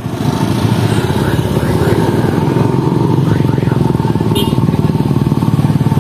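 A small engine idling steadily close by, its firing heard as a fast, even pulse.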